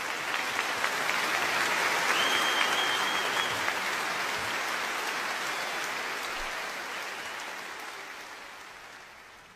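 Audience applauding, peaking about two to three seconds in and then slowly dying away, with one brief high whistle about two seconds in.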